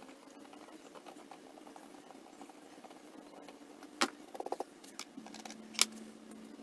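Small metal hand tools and parts handled at the bench: a sharp metallic click about four seconds in, a quick run of light ticks right after, and another sharp click near six seconds, over a faint steady hum.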